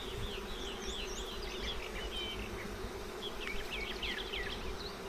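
Swarm of honey bees humming steadily around an open hive, with short high chirps over the hum.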